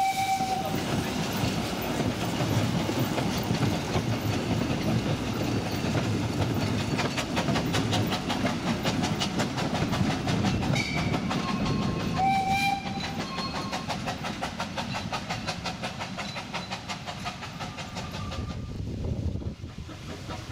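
Narrow-gauge steam train running, with a short whistle blast at the start and another about twelve seconds in. The running noise gets quieter in the second half.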